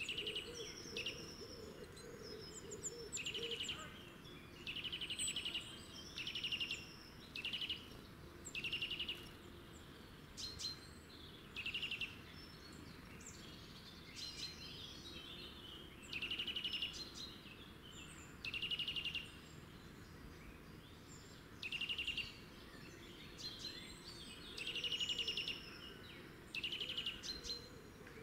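Small songbirds singing: about a dozen short, rapidly trilled phrases, each under a second and repeated every second or two, with thin high notes between them.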